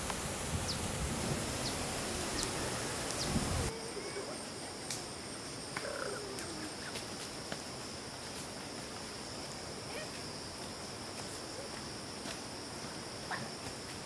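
A steady rushing noise cuts off about four seconds in. After it comes a steady, high-pitched insect drone, like crickets or cicadas, with scattered small clicks and a few faint chirps.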